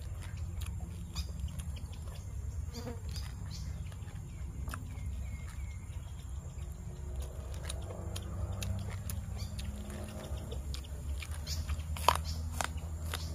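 Flies buzzing steadily around the food. Scattered short crunches and clicks from fresh cabbage and lettuce leaves being torn and chewed, the loudest a sharp crunch about twelve seconds in.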